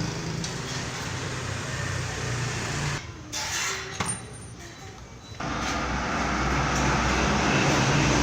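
Electric power tool running steadily, stopping about three seconds in and starting up again about two seconds later.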